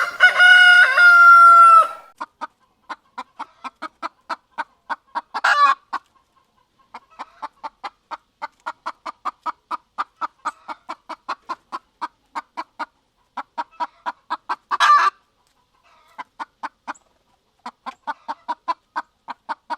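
A rooster crows once, then a hen clucks in long runs of quick short clucks, about three or four a second, broken by two brief louder squawks.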